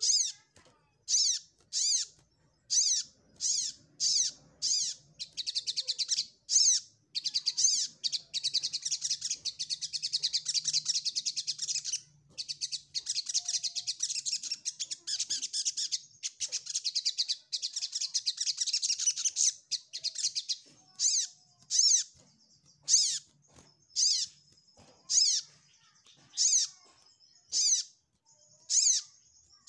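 Sogok ontong sunbird giving its territorial challenge call, the song of a male seeking a rival. It gives sharp, high single calls about a second apart, then breaks into a long, fast twittering run about seven seconds in, which lasts some twelve seconds before it returns to spaced single calls.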